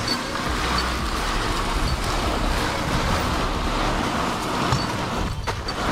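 Diesel engine of heavy machinery running steadily under work, a dense even rumble and roar.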